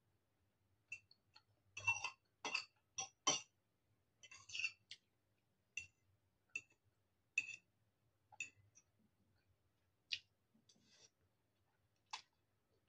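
Eating sounds: a metal fork clinking and scraping against a ceramic noodle bowl, mixed with chewing and mouth clicks. The sharp clicks come irregularly, loudest in a quick cluster about two seconds in.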